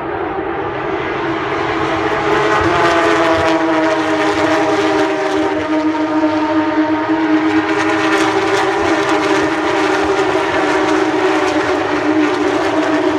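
Porsche 911 GT3 Cup race cars' flat-six engines running at sustained high revs, swelling louder over the first three seconds and then holding a steady, slightly wavering pitch.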